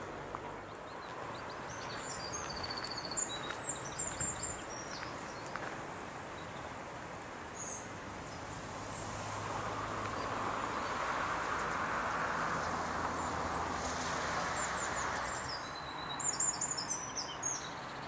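Small birds chirping in short, high phrases, a few seconds in and again near the end, over a steady outdoor background hiss that swells for a few seconds in the middle.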